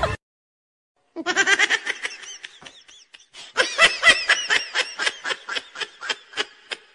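High-pitched laughter: a long run of short, rapid ha-ha pulses starting about a second in, with a brief dip before it picks up louder again.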